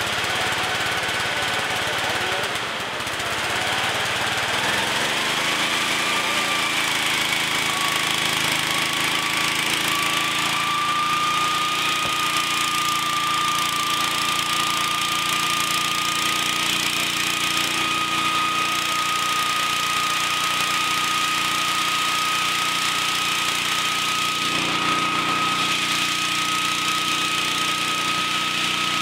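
Small gasoline engine on portable firefighting equipment running steadily; a few seconds in it dips briefly, then speeds up and holds a higher speed with a steady high whine.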